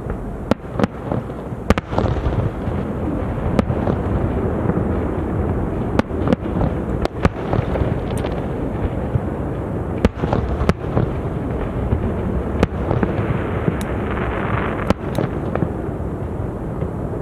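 Aerial fireworks bursting: a steady run of sharp bangs, some in quick pairs, over a continuous rumble of overlapping reports. A crackling hiss swells about three-quarters of the way through.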